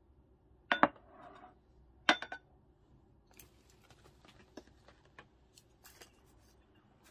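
Tableware knocking and clinking on a table as a meal is set out: two sharp clinks just under a second in and another about two seconds in, then lighter scattered taps and clicks of dishes, chopsticks and a plastic food container.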